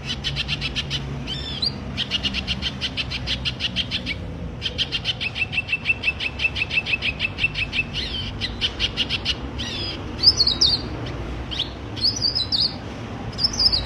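Sunbird calling: a fast, even trill of high chirps at about ten a second in two long runs, then short scattered whistled notes near the end.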